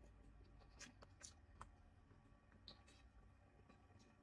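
Near silence: room tone with a handful of faint, short clicks.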